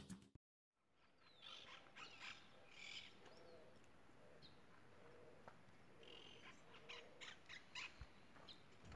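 Faint birds chirping and calling, in scattered short bursts of chirps, over a quiet outdoor background.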